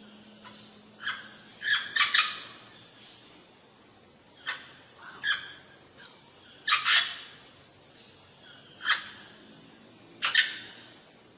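Bird calls: short, sharp chirps that come singly and in quick pairs, with pauses of up to a second and a half between them.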